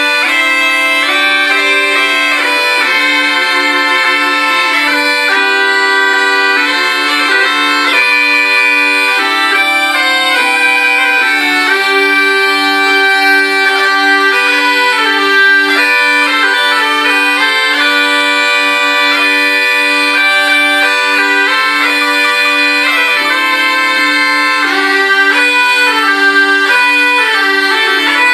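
A trio of bagpipes, a polyphonic ceccola and musettes, playing a folk tune together: a steady held low note sounds under interweaving chanter melodies.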